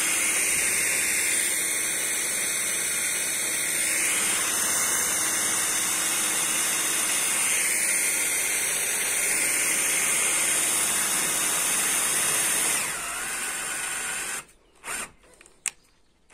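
Cordless drill running steadily as it turns an awning's crank gearbox, winding the awning. About 13 s in the sound drops and it stops soon after, followed by a few short spurts of the drill near the end.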